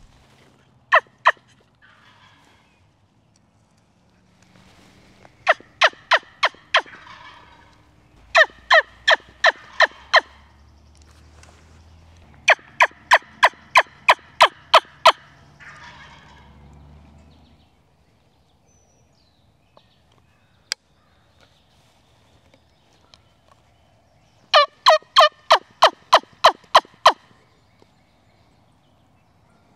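Hen turkey yelps imitated on a hand-held, mouth-blown turkey call: loud runs of short, sharp yelping notes, a pair at first, then runs of about six to ten, with pauses between. It is a hunter's calling sequence meant to draw a gobbler in.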